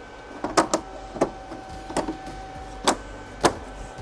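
Plastic bezel clips of a 32-inch Insignia LED TV snapping into place as the front frame is pressed down onto the panel: about six sharp clicks at uneven intervals.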